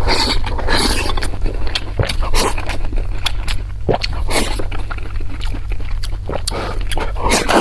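Close-miked chewing and eating sounds: wet, sticky mouth noises with many irregular small clicks and smacks.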